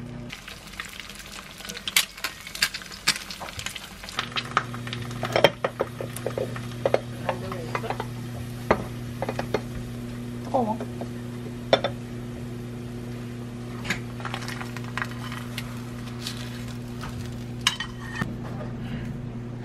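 Home cooking sounds: sizzling, stirring, and many short clinks and scrapes of a spoon and ceramic bowls and dishes, busiest in the first half, over a steady low hum.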